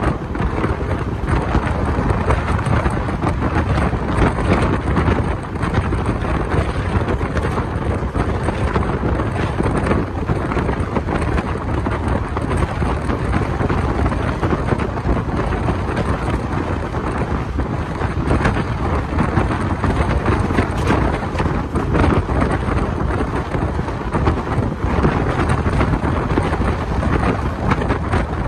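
Wind buffeting the microphone held out of a moving passenger train's window, over the train's steady running noise.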